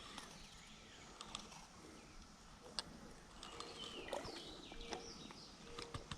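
Quiet outdoor ambience with a few faint bird chirps about halfway through and scattered soft clicks.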